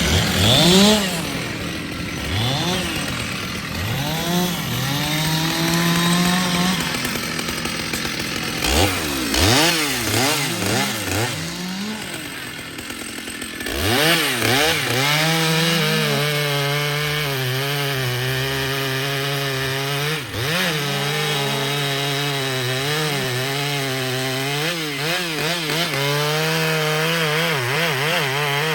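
Stihl chainsaw revved up and down in repeated short throttle blips. About halfway through it settles into a sustained high-rev run, its pitch wavering as it saws through wood.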